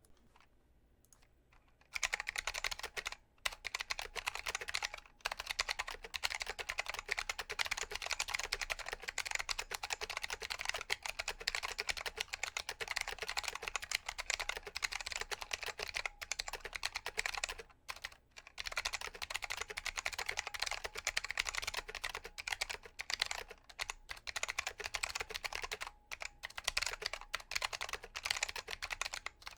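Fast, continuous typing on a KBParadise V60 Mini mechanical keyboard with clicky Matias Click switches, starting about two seconds in after a short quiet spell, with a few brief pauses.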